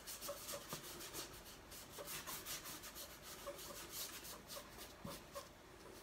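Paintbrush bristles stroking acrylic paint onto paper: a faint, repeated scratchy brushing, one short stroke after another.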